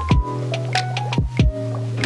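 Background music: a melody of short notes over a held bass line, with drum hits.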